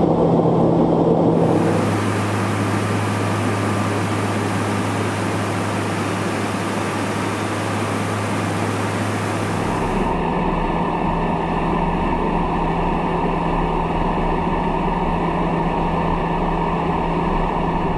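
Embraer A-29 Super Tucano's Pratt & Whitney PT6A turboprop running steadily in flight, a constant engine hum under rushing noise. The sound changes abruptly twice, about a second and a half in and about ten seconds in.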